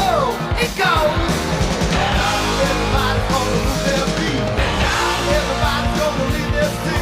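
Rock music with singing and a driving beat.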